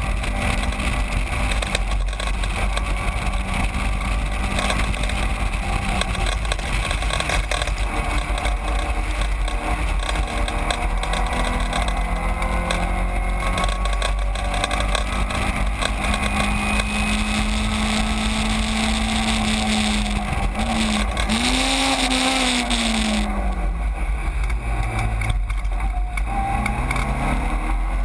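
Caterham 7 race car's engine heard from the open cockpit at racing speed, over a steady low rush of wind on the microphone. The engine note holds fairly steady for most of the time, then falls and climbs again several times near the end as the car slows and picks up speed.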